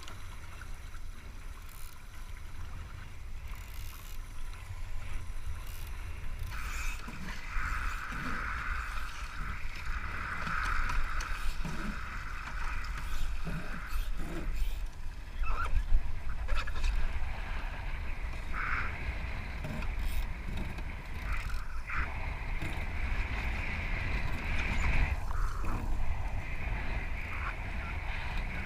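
Wind buffeting the microphone with the rushing hiss of water and spray from a Voodoo foiling Moth dinghy under sail. The hiss comes in about seven seconds in and swells and fades in waves.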